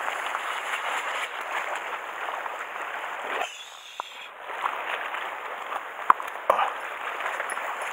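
Sea waves washing and splashing against a rocky shoreline in a steady rush, easing for a moment about three and a half seconds in. A few short sharp knocks come near the end.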